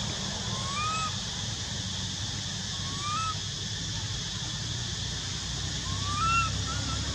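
Baby macaque giving short rising whimpering cries, four in all, the last two close together near the end, over a steady background hiss and hum.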